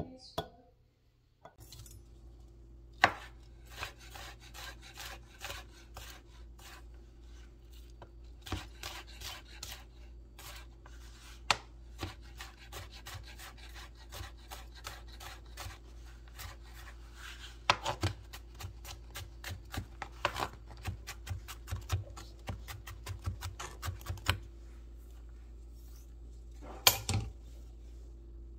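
Chef's knife mincing garlic on a plastic cutting board: a long run of quick, irregular taps of the blade against the board, with a few louder knocks among them.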